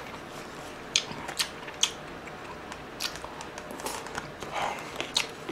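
Close-miked eating sounds from a man taking spoonfuls of kimchi stew and rice and chewing them, with about six short, sharp clicks spread through.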